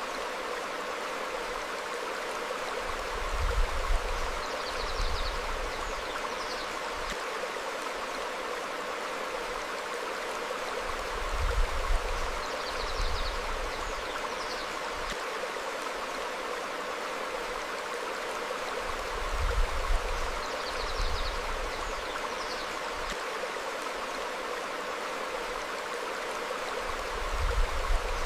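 Stream flowing over rocks: a steady rush of water. A low rumble swells about every eight seconds, and faint short bird chirps follow each swell.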